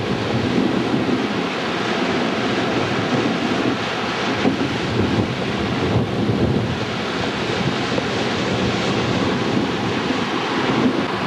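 Hurricane-force wind buffeting the microphone over storm-surge waves breaking and washing ashore, a loud, steady rush that swells and eases with the gusts.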